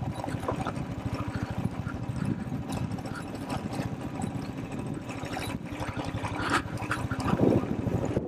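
Motorcycle engine running, a steady fast beat of firing pulses, with a few light clicks over it.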